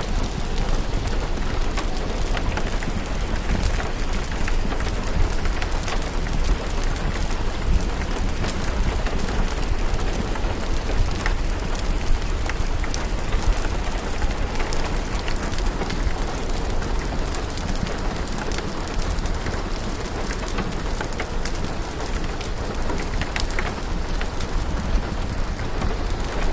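Steady rain, a continuous hiss over a deep low rumble, dotted with scattered sharp ticks and crackles.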